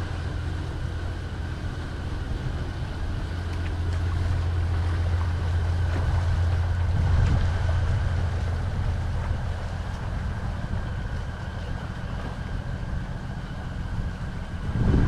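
Steady low drone of a river boat's engine as the boat passes along the river.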